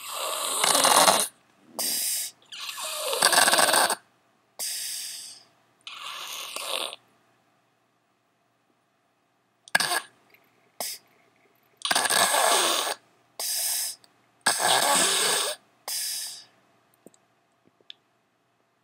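Snoring: about a dozen loud, rasping snores, each half a second to a second long and mostly in in-out pairs, with a pause of nearly three seconds about a third of the way through.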